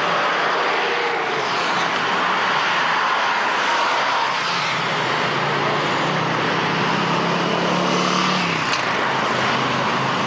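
Several Harley-Davidson police motorcycles riding together in formation, their V-twin engines running in a steady, loud drone.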